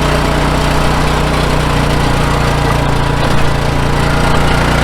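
Riding lawn mower's engine running steadily at its set running speed, a loud, even low hum with no change.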